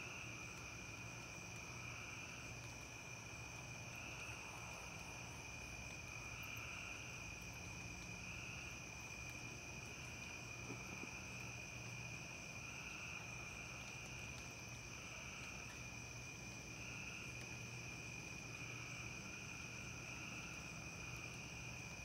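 Chorus of insects, crickets among them, trilling steadily, with a lower trill swelling about every two seconds under a continuous higher-pitched drone. A faint low hum sits underneath.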